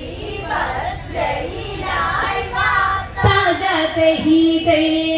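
Women singing a Malayalam Onamkali (therali pattu) song, the melody gliding between notes and then settling into long held notes in the second half.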